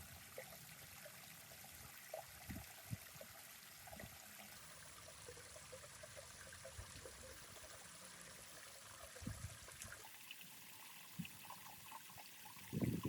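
Water trickling and flowing faintly and steadily through a miniature dam model, with a few soft low splashes.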